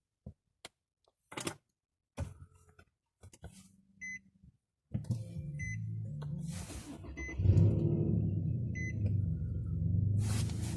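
A few clicks, then a car's warning chime beeping about every second and a half while the Infiniti EX35's VQ35HR 3.5-litre V6 starts about halfway through and runs, its low rumble growing louder a couple of seconds later.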